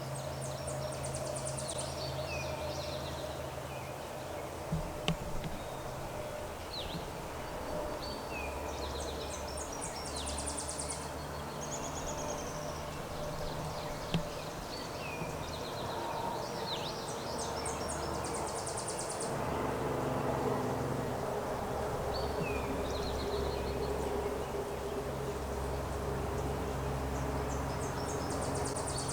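A songbird singing the same high, trilling phrase four times, about every eight seconds, over a steady low hum of outdoor background.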